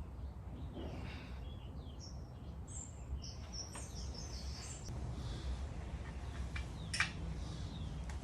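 Birds chirping and calling, with short gliding high notes, over a steady low background rumble. A few sharp clicks cut in, the loudest about seven seconds in.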